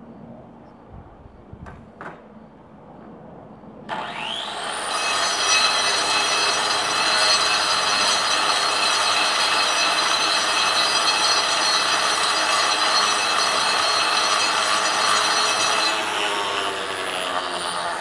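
A few light knocks, then about four seconds in a handheld angle grinder spins up with a rising whine and cuts into a stone block: a loud, steady high whine over a gritty grinding. Near the end it is switched off and winds down with a falling whine.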